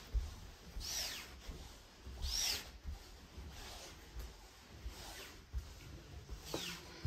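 Footsteps climbing carpeted stairs: soft, dull thuds with a few short squeaks that rise and fall in pitch, one about a second in, one about two and a half seconds in, and one near the end.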